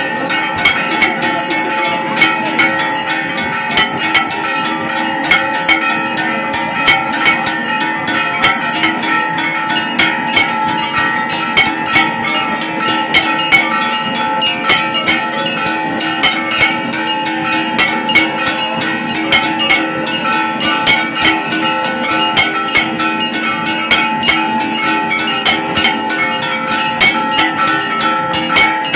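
Temple aarti percussion: metal bells ringing on without a break over fast, continuous drum and metal strikes, with louder beats a few times a second.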